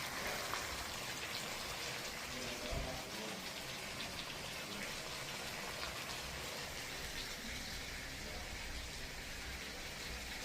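Food frying in hot oil in a pan: a steady sizzle with scattered small crackles.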